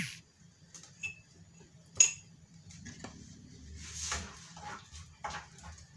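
Wooden spoon knocking and scraping against a frying pan as a tomato-and-pepper sauce is stirred on a gas hob: one sharp knock about two seconds in, with a few lighter clicks and soft scraping after it.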